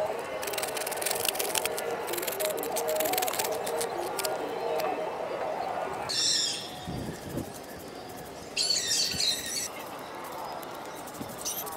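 Grass and weeds being torn up by hand: a dense crackling rustle of snapping stems and roots. About six seconds in it gives way to a stick broom sweeping dry soil, two short swishes some three seconds apart.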